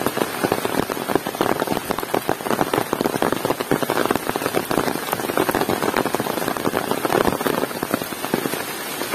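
Heavy rain falling, a dense, steady patter of countless drops striking a hard surface.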